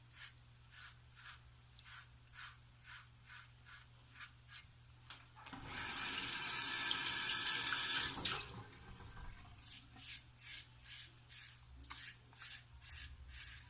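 Double-edge safety razor (Gillette Aristocrat) scraping through two days' stubble in quick short strokes, about two to three a second. About five and a half seconds in, the sink tap runs for nearly three seconds, then the short razor strokes resume.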